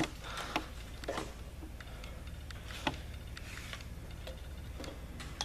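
A few separate light clicks and knocks, like a light or tool being handled and set down, over a steady low hum.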